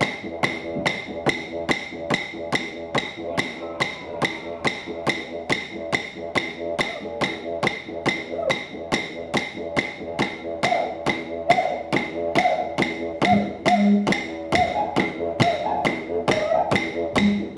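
Didgeridoo droning under a steady beat of wooden clapsticks at about three strikes a second, with higher wavering notes over the drone in the second half.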